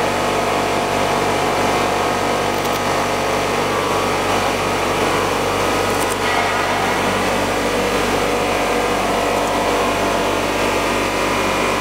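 Blown film extrusion line running: a steady machine drone with several constant hum tones as motors, blowers and rollers turn.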